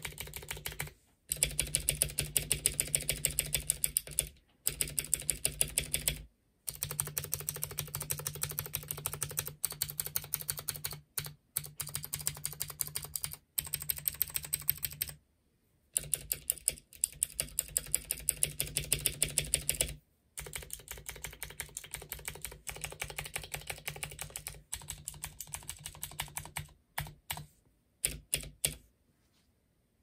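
Typing on a Womier K66 mechanical keyboard fitted with clicky Gateron Blue switches: fast runs of sharp key clicks broken by short pauses, stopping shortly before the end.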